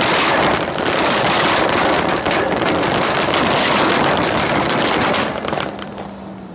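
Wire shopping cart rattling and clattering as it rolls over parking-lot asphalt, a fast continuous metallic rattle. It dies down sharply about five seconds in as the cart slows.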